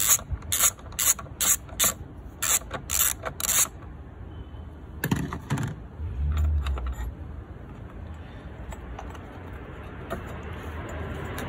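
Ratchet clicking in a quick repeated series as a 13mm socket on an extension undoes the battery hold-down bracket bolt. The clicking stops after about three and a half seconds, followed by a few knocks and a short low thump as the bracket comes loose.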